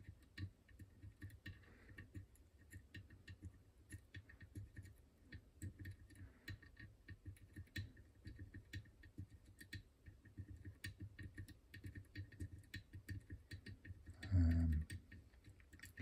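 Faint, irregular ticking and clicking of a thin steel lock pick pushing and tapping the tapered spool pins inside a French Izis lock cylinder while it is held under tension: single-pin picking, the pins taking turns binding and each touch giving a small click.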